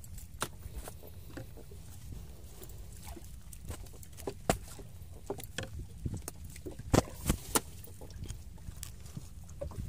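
Gill net being hauled in and picked over the side of a small boat: scattered clicks and knocks of the net, its floats and the fish against the hull. The loudest is a quick run of three knocks about seven seconds in, over a steady low rumble.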